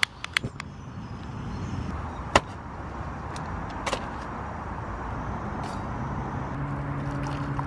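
Steady road traffic noise from the dual carriageway. A few sharp clicks and knocks come through it: several near the start, then single ones about two and four seconds in. A low steady hum joins near the end.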